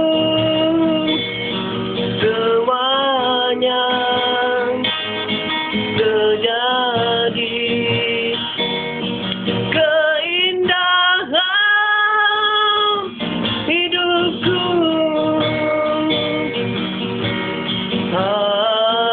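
Guitar strummed as a chord accompaniment, with a voice holding long, wavering notes over it. There is a brief break a little after ten seconds, and then a note slides up.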